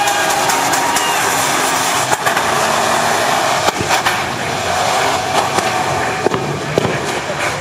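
Toyota Land Cruiser SUVs drifting on wet asphalt: engine noise under a steady hiss of tyres spinning and spraying water, with a few sharp cracks.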